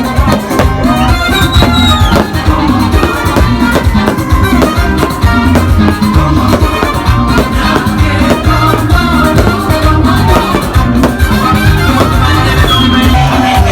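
Loud Latin dance music with a steady drum beat.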